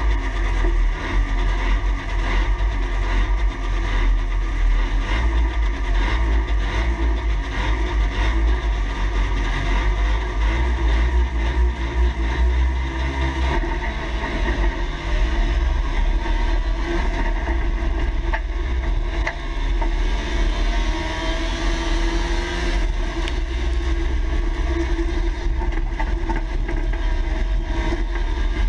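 Trabant two-stroke twin-cylinder engine running and revving, heard from inside the stripped race car's cab over a heavy low rumble. Its pitch climbs a couple of times about two-thirds of the way in, and there are scattered sharp knocks.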